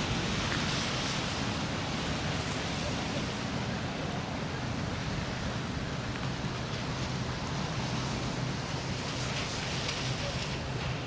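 Steady city street noise: the low hum and hiss of road traffic, unbroken and even in level.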